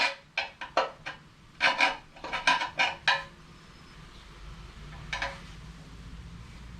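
Knife-edged pry bar scraping old gasket off a metal valve cover in short, quick strokes, six or so in the first three seconds, then one more stroke about five seconds in.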